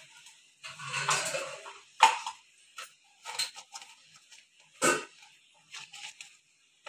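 Kitchen handling sounds around a stainless steel mixing bowl as spices are spooned in: two sharp clicks about two and five seconds in, a short muffled rustle about a second in, and a few fainter clicks near the end.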